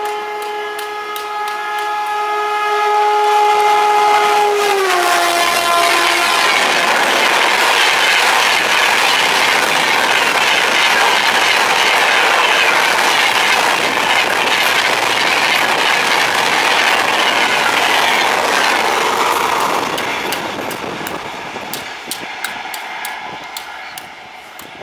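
WAP-4 electric locomotive of the Rajdhani Express sounding one long horn blast as it approaches at speed, the note dropping in pitch as the locomotive passes about five seconds in. The coaches then run past at speed, loud and steady, fading away after about twenty seconds.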